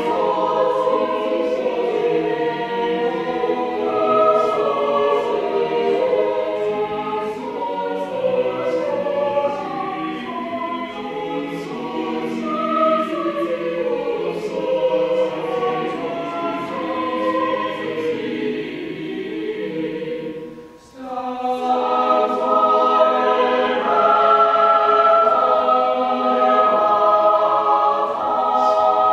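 A congregation singing a hymn together in harmony in a reverberant church. The singing breaks off briefly about three-quarters of the way through, then starts again.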